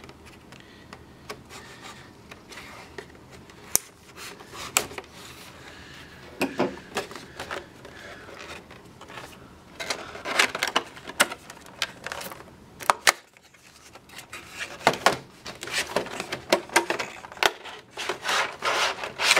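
A cardboard Logitech C920 webcam box and its clear plastic insert being handled and opened: scattered clicks, crinkles and rubbing of cardboard and plastic. It gets busier about halfway through, with a short lull in between.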